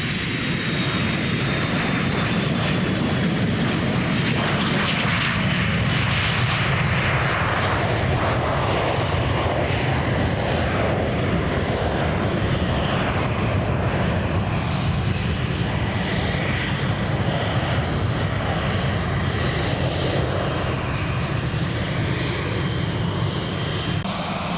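An airplane's engines running, a steady loud drone with a faint high whine that slides slightly down in pitch in the first few seconds.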